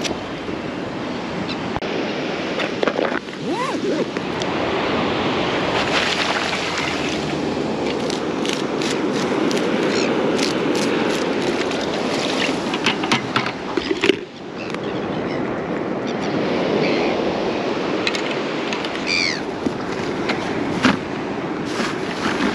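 Steady rushing noise of wind and breaking surf, with scattered short knocks and splashes of hands working in a bucket of water.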